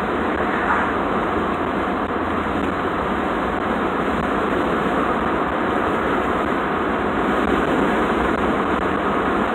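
Steady road and engine noise heard inside a small truck's cab at highway speed, with a brief swell about a second in as an oncoming car passes.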